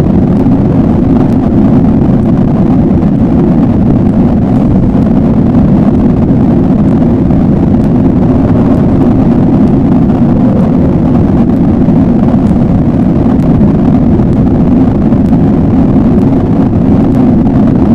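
Loud, steady low rumbling drone that does not change, used as a dark ambient sound effect.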